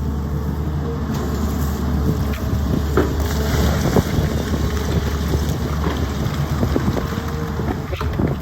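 Sany excavator's diesel engine running steadily, with scattered sharp knocks and scrapes, the loudest near three, four and eight seconds in.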